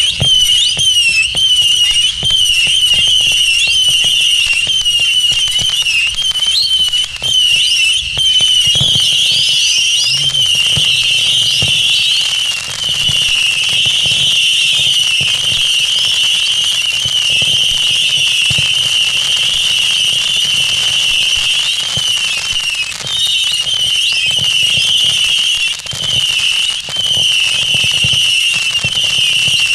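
#WATT Stereo Whistler, a 900-shot battery of 8 mm whistling tubes, firing non-stop: a dense stream of overlapping high whistles that waver in pitch, over a rapid patter of launch pops, dipping briefly a few times.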